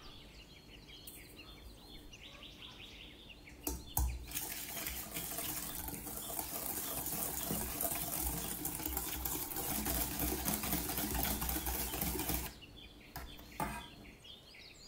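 Egg yolks and sugar being beaten together in a bowl. The beating starts suddenly about four seconds in, runs steadily for about eight seconds, then stops.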